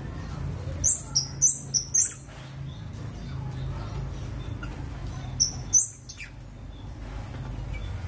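Caged flowerpecker (kemade) calling: a quick run of about five sharp, high chirps flicking between two pitches about a second in, then two more near six seconds. A steady low hum sits underneath.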